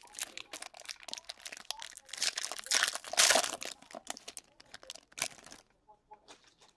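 Crinkling and tearing of a foil trading-card pack wrapper being ripped open and handled, a dense crackle that is loudest about three seconds in.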